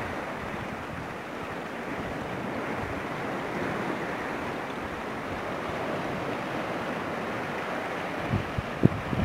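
Rough sea surf breaking and washing over shore rocks, a steady rush, with a few short low thumps near the end from wind buffeting the microphone.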